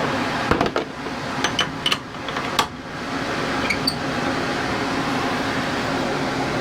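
A jar of wood segments handled into a lathe chuck: several clicks and knocks with short rings in the first four seconds, over a steady fan-like hum.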